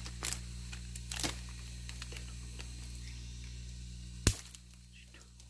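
A steady low hum with a few faint clicks, and one sharp crack about four seconds in.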